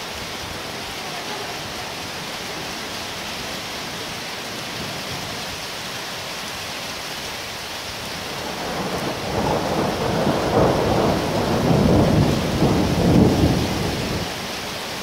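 Heavy rain falling steadily in a severe thunderstorm. About eight seconds in, a long roll of thunder swells for about five seconds, loudest near its end, then fades back under the rain.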